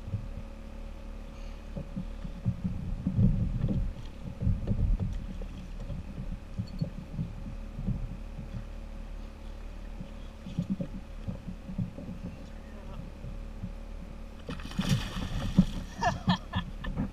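Repeated dull low knocks throughout, then, from about two and a half seconds before the end, a burst of loud splashing as a hooked tarpon thrashes at the surface right beside the kayak.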